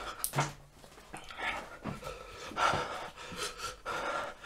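A man panting hard through his mouth, a series of hissing breaths about a second apart with a short groan about half a second in, from the burning heat of an extremely spicy tortilla chip.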